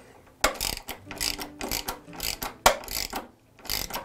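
Screw being turned in by hand with a wooden-handled screwdriver, a short grating click with each twist, about three a second.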